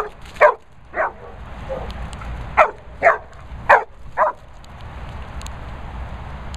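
A black Labrador barking, seven short barks in quick, uneven succession that stop a little over four seconds in.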